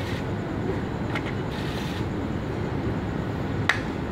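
Steady low rumble of outdoor background noise, with one sharp click about three and a half seconds in.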